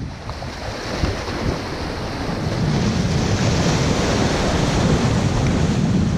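Ocean waves washing against the rocks of a jetty, mixed with wind buffeting the microphone. The noise dips just after the start and swells back up over the next couple of seconds.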